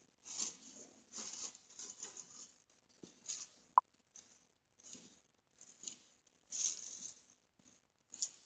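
Irregular rustling and scuffing noises in uneven bursts, with one short sharp blip a little before the middle.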